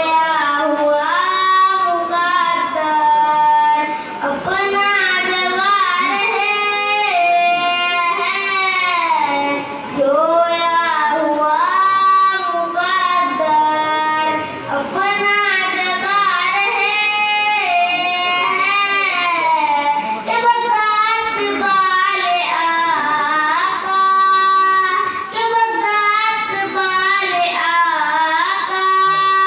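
A boy singing a naat, a devotional song in praise of the Prophet, solo into a microphone. Long held notes that bend and waver in pitch, in phrases broken by short breaths every few seconds.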